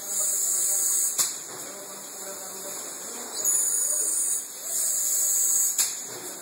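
Syringe production machine running, with a hiss lasting about a second that comes three times and two sharp clacks, one about a second in and one near the end.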